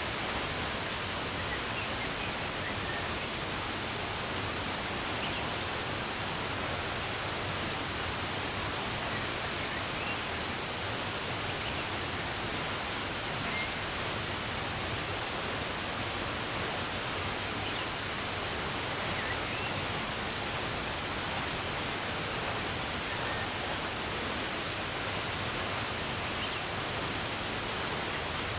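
Steady rush of running water, with a few faint, scattered bird chirps over it.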